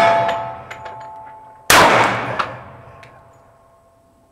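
A Springfield Armory Champion Operator .45 ACP pistol firing: the tail of one shot dies away at the start, and another shot goes off a little under two seconds in. A metallic ringing hangs on after the shots.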